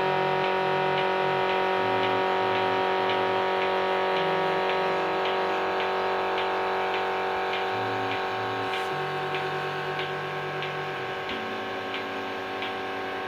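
Godhan GS150 oil-type milking machine's electric vacuum pump running with a steady hum, while its pulsator ticks about twice a second. The vacuum is being turned down with the regulator toward 400 on the gauge, and the sound grows slightly quieter.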